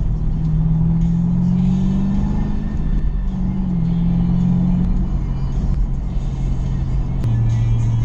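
Background music with sustained low bass notes that change pitch in steps.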